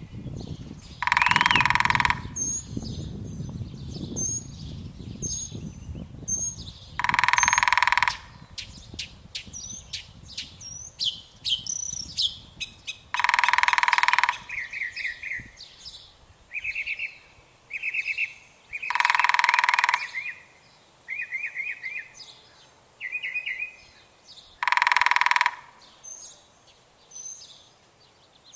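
A woodpecker drumming in five loud rolls about a second long, spaced roughly six seconds apart. Other birds chirp and trill between the rolls.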